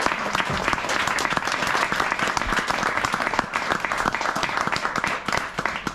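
A roomful of people applauding, many hands clapping together in a dense, steady patter.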